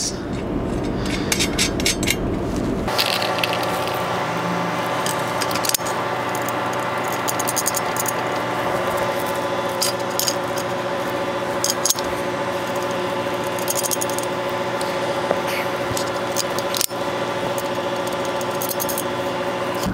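Small metallic clinks and jingles of steel bolts and nuts being fitted by hand to aluminium mounting brackets, over a steady background hum that sets in about three seconds in.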